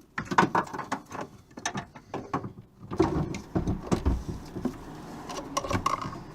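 Irregular clicks, knocks and clatter of hand tools and metal parts being worked in a van's engine bay while a bracket is taken off, with a few heavier thumps around the middle.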